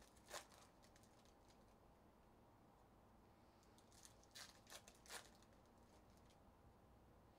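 Faint tearing and crinkling of a foil trading-card pack wrapper (2024 Bowman) being ripped open by hand: one short rip just after the start and a quick run of three or four crinkles about four to five seconds in, with quiet room tone between.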